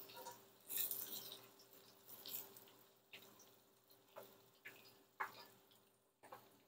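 A wire spider skimmer stirs popcorn and watermelon pieces through hot frying oil in an enameled cast-iron pot. There is a swishing burst about a second in, then scattered light clicks and taps.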